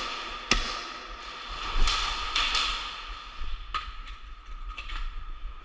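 Airsoft play with one sharp pop about half a second in, a burst of rustling around two seconds in, and fainter clicks later on.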